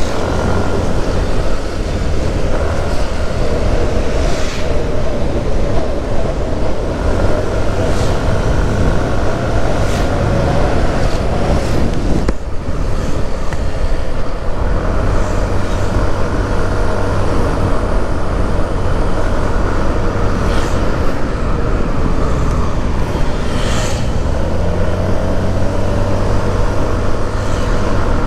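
Motorcycle engine running under way, with wind and road noise over the microphone: a steady hum that drops out briefly about twelve seconds in and then picks up again.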